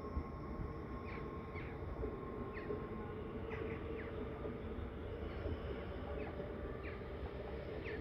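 NS Sprinter Lighttrain (SLT) electric train receding from the platform; its running noise and a thin steady whine fade out over the first few seconds. Small birds make short, quick chirps throughout.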